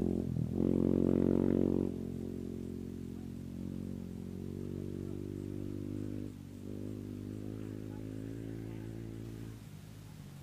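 A race vehicle's engine running hard and moving away into the distance, fading gradually, with a clear drop in level about two seconds in.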